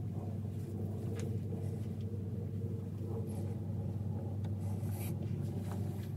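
A steady low machine hum, with a few faint soft rustles and taps of fabric being handled as gloves and clothing are laid down.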